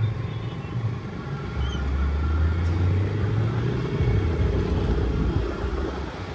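KTM RC 200 motorcycle's single-cylinder engine running while riding in traffic, a deep low drone that shifts in pitch a few times as the throttle changes.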